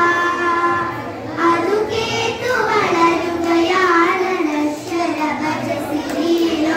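A group of young girls singing a Malayalam patriotic song (deshabhakti ganam) in unison, with long held notes and short gliding melodic phrases.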